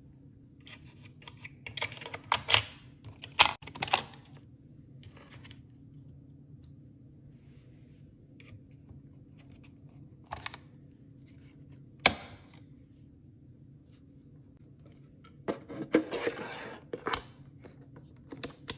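Small clicks, taps and scrapes of a precision electric screwdriver set and its compact plastic case being handled, in scattered clusters, with one sharp snap about twelve seconds in.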